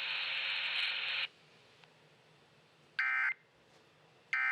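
A band of radio hiss cuts off sharply about a second in; after a short pause come two brief warbling data bursts, about a second apart, of an Emergency Alert System end-of-message code (SAME 'NNNN'), the second one near the end, marking the close of the alert.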